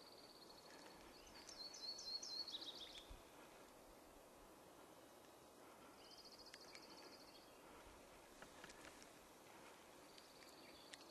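A small songbird sings a high, rapid trill three times. The first and loudest song breaks into a run of falling notes at the end. Between songs there is only a faint steady background hiss.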